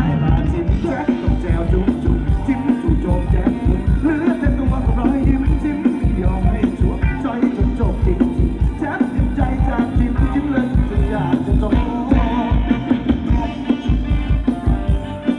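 Live band playing Thai ramwong dance music, loud and amplified, with a steady drum beat and singing.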